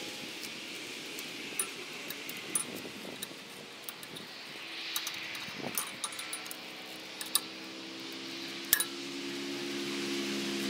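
Scattered sharp metal clinks and scrapes of a hand tool against rototiller tines as wrapped grass and roots are picked out, over a steady background hiss. A steady motor hum grows louder near the end.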